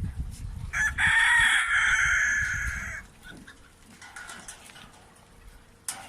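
A rooster crowing once: a single loud, drawn-out call of about two seconds, starting about a second in. A sharp click comes near the end.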